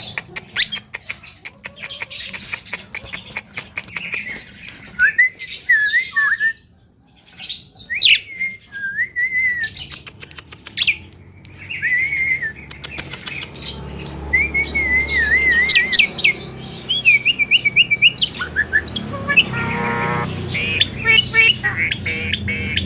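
Javan myna chattering: quick dry clicks and harsh squawks mixed with short warbled whistles, with a harsher buzzy call a little over three-quarters of the way through.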